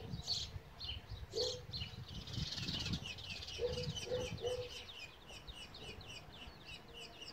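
Small birds chirping: a quick run of short, high, downward chirps, several a second, mixed with a few short low notes.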